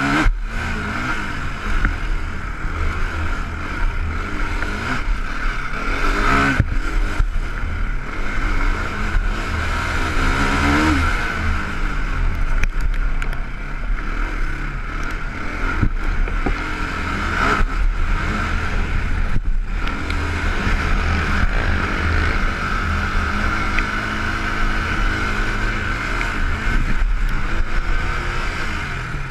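Can-Am DS450 quad's single-cylinder four-stroke engine running hard under race throttle, its pitch rising and falling as the rider accelerates and backs off, with a few brief cuts where the throttle is chopped.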